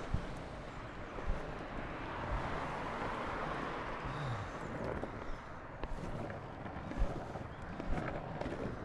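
Longboard wheels rolling on a paved footway: a steady rumbling hiss, broken by several sharp knocks, the loudest near the start, about a second in and about seven seconds in, as the wheels cross slab joints and cracks. Road traffic passing alongside swells the noise around the middle.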